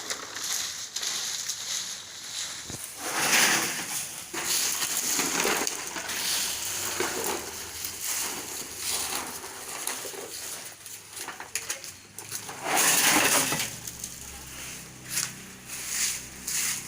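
Krupuk-separating machine running, with dry raw crackers rattling and crunching against each other inside as it breaks the stuck sheets apart. The sound is an irregular dry clatter, with louder surges about three and a half seconds in and again around thirteen seconds.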